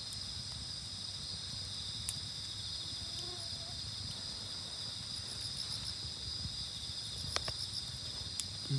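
Night insects chirring steadily, with a few sharp pops from a wood campfire: about two seconds in, and twice near the end.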